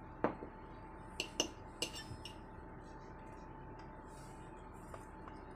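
A handful of light, sharp clinks and taps of kitchen utensils against a stainless steel bowl in the first two seconds or so, while flour is added to water for batter. A faint steady hum sits underneath.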